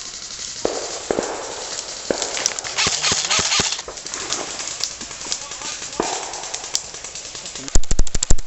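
Scattered clicks and knocks over a rustling background, then near the end a loud, fast burst of full-auto airsoft fire, the rapid even rattle of an electric airsoft gun at roughly a dozen shots a second.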